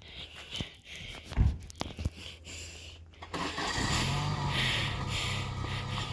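A few knocks and a low thump, then a vehicle's engine starts about three and a half seconds in and settles into a steady idle.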